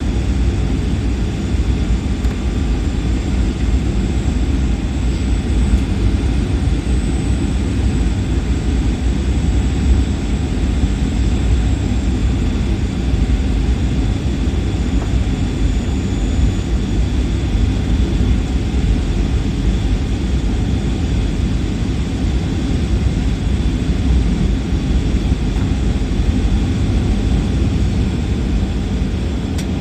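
Steady roar of a jet airliner's engines and rushing air heard inside the passenger cabin on the approach to landing, with a faint high whine above it.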